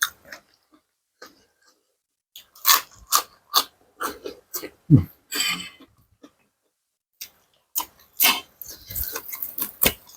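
Close-miked chewing and mouth smacking of spicy seafood salad with fresh vegetables, irregular wet clicks and crunches in bunches, with a short low falling hum about five seconds in.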